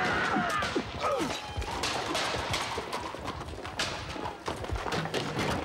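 Horse hooves galloping over hard ground, a run of quick irregular thuds, with a brief high cry near the start.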